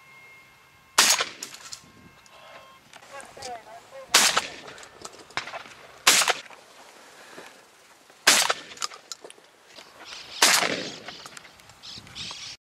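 Five shotgun shots at flying doves, spaced about two seconds apart, each a sharp crack with a short echoing tail.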